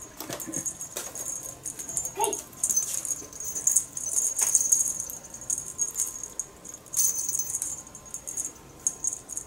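A small plush cat toy rattling and jingling in quick, irregular shakes as it is dangled and a cat bats at it with its paws.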